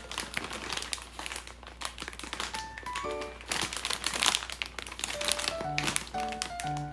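Grocery packaging crinkling and rustling as it is handled, with background music of short melodic notes.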